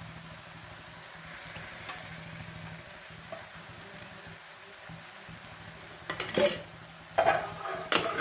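Faint steady sizzle of frying in a pan as oil is ladled over sliced onions, then three short, loud bursts from the pan about six, seven and eight seconds in.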